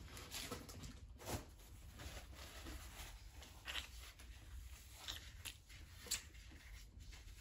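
Quiet room with a steady low hum and a few faint, scattered soft clicks and rustles from a paper napkin and snack wrapper being handled.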